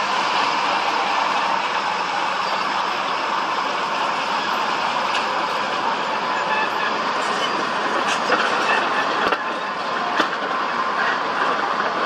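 Heavy construction machinery running: a steady mechanical noise with a faint whine, and a few sharp clanks about eight to ten seconds in.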